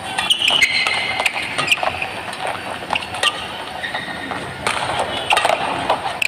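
Badminton rackets striking a shuttlecock again and again in a fast doubles rally, each hit a sharp crack, with short squeaks of court shoes on the mat between strokes.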